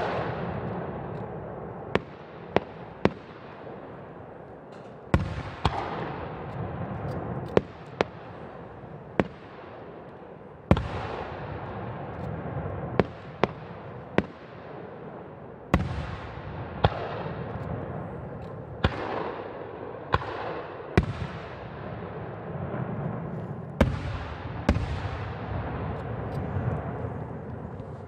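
Aerial firework shells bursting one after another at uneven intervals, some in quick pairs. Each sharp bang trails off into a long fading echo, and the loudest bang comes about a third of the way through.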